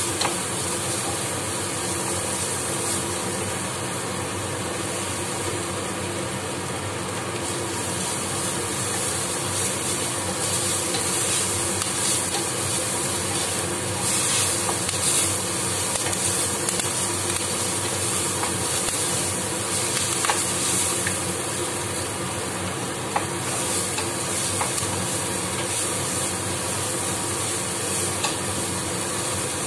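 Chopped vegetables and leafy greens sizzling in oil in a nonstick pan while a wooden spatula stirs them, scraping the pan. A few sharp taps of the spatula come in the second half, over a steady hum.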